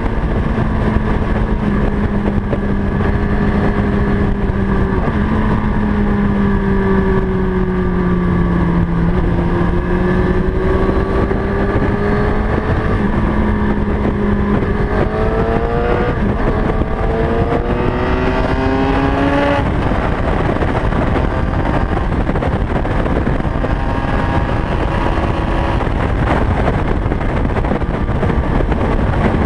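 Honda CB600FS's inline-four engine running at road speed under a heavy rush of wind noise. The engine note sags a little, then climbs steadily as the bike accelerates and drops off suddenly about two-thirds of the way through, then carries on more quietly.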